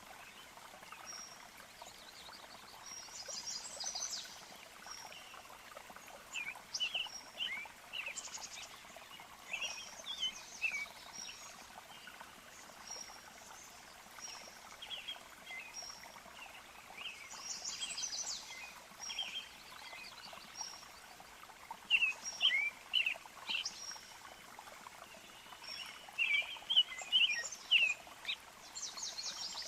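Several birds chirping and singing: short whistled notes and quick buzzy trills, coming in loose clusters, over a faint even hiss.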